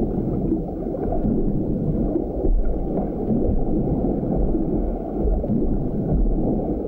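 Muffled underwater ambience: a steady, dull rumble and gurgle of water with no clear tone, heavy in the deep lows.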